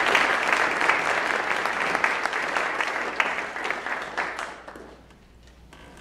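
Audience applause in a large room at the end of a talk, fading out about three-quarters of the way through.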